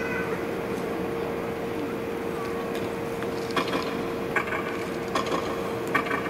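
Clock-like mechanical ticking sound effect in the show's soundtrack, starting about halfway through at a little under one tick a second, over a steady hum.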